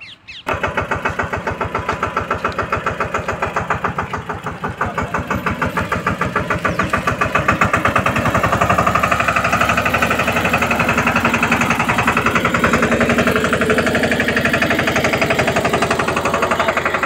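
Single-cylinder diesel engine of a Massey Ferguson 5118 mini tractor running with a rapid, even beat. It comes in suddenly about half a second in and grows louder about halfway through.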